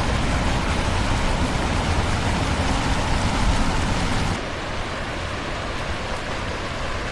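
Muddy floodwater rushing in a flash flood, a steady noisy wash of water. About four seconds in it cuts to another stretch of flowing floodwater that is a little quieter.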